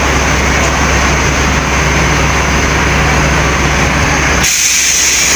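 Large intercity bus engine idling close by, a steady low rumble with a constant hum. Near the end the rumble cuts out abruptly, leaving a hiss.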